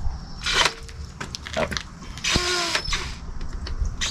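Cordless drill/driver running in two short bursts, about half a second in and again midway, as its bit works at a seized brake-drum retaining screw on a bus front wheel hub.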